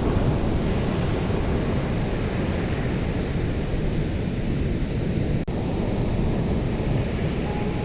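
Ocean surf on a beach, a steady rush of breaking waves with a brief dropout in the sound about five and a half seconds in.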